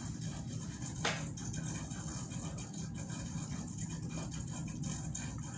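Steady low room hum with a faint high hiss, broken by one sharp click about a second in.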